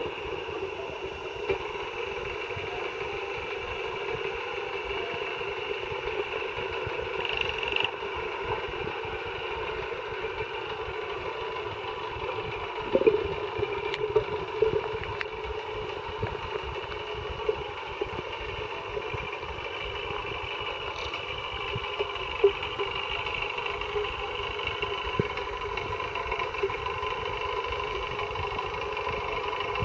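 Steady drone of a boat engine carried through the water and heard underwater, with a few faint knocks about halfway through and again later.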